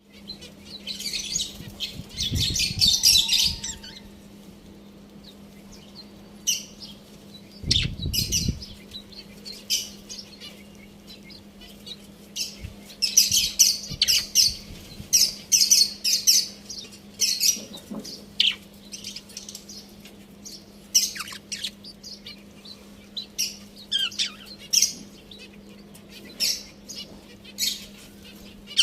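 Budgerigars chirping and chattering in quick, repeated bursts of high twittering, with two low thumps about two and eight seconds in, over a faint steady hum.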